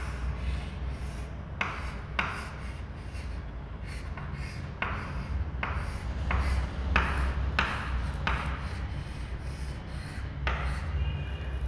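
Chalk scratching on a chalkboard: about a dozen short, scraping drawing strokes, heard over a steady low hum.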